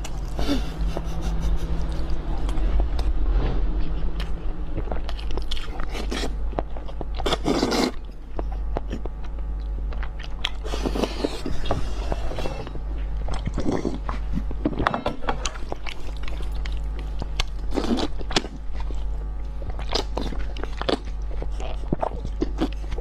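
A person slurping and chewing spicy instant noodles close to the microphone: wet chewing with several long, loud slurps scattered through.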